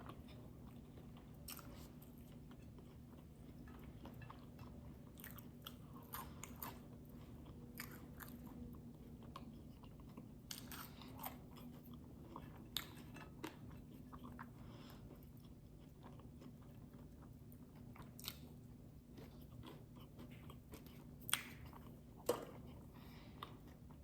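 Faint close-up chewing and biting of a bacon breakfast sandwich and fries, with scattered crunches and mouth clicks, two sharper ones near the end, over a steady low hum.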